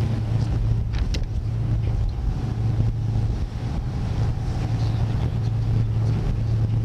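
Excursion boat's engine running with a steady low drone.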